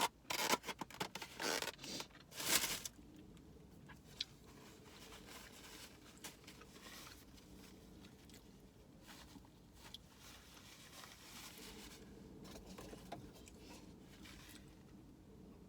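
Close-miked eating sounds: about three seconds of rustling, crunchy bursts from taking and chewing a bite, then quiet with a few faint clicks.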